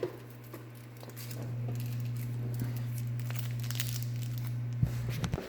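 Plastic packaging crinkling and crackling as a container of laundry scent beads is handled, over a steady low hum that grows louder about a second in and drops away near the end.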